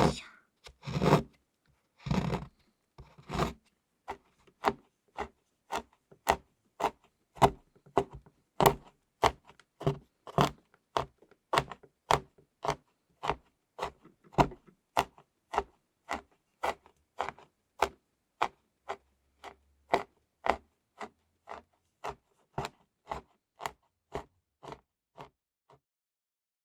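A steady run of sharp strokes on a thick slab of chocolate, about three a second, starting with a few heavier, fuller hits and then settling into light, even clicks that grow fainter and stop shortly before the end.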